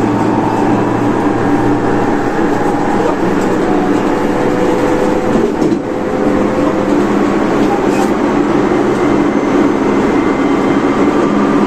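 Tobu 30000 series electric train running, heard from inside the car: the steady hum of the traction motors and Hitachi IGBT inverter over the rumble of wheels on rail.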